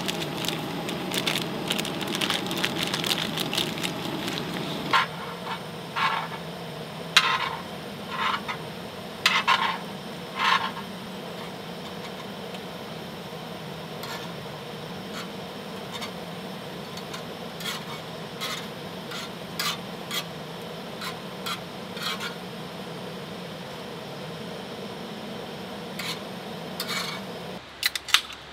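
Thick spicy tteokbokki and ramen sauce bubbling and sizzling in a shallow pan on a gas burner, with metal tongs stirring, scraping and tapping against the pan. The bubbling is fullest for the first few seconds, a run of sharper taps comes between about five and eleven seconds in, and the sound cuts off abruptly just before the end.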